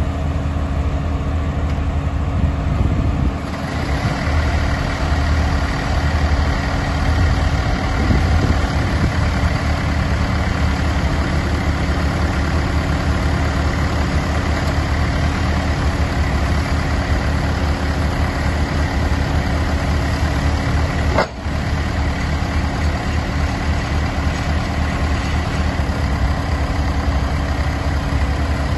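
Four-cylinder engine of a tracked telescopic access platform running steadily while its hydraulics work the outriggers and boom. A faint high steady whine joins about three and a half seconds in, and there is a short click with a brief dip about twenty-one seconds in.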